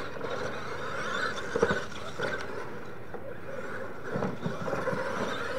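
Radio-controlled scale monster trucks racing on a dirt track, motors running and tyres churning over dirt, with a sharp thump about a second and a half in.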